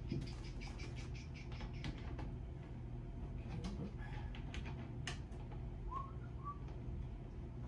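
Faint clicks and taps of a water filter cartridge being handled and fitted into its wall-mounted head, with two short squeaks about six seconds in, over a steady low hum.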